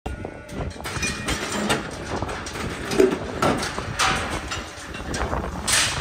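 Irregular metal clanks and knocks from a WOPA hoof-trimming crate as a Holstein cow walks into it, with a short hiss shortly before the end.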